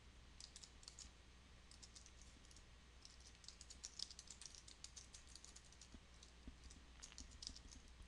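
Faint typing on a computer keyboard: quick keystrokes in several short bursts with brief pauses between them.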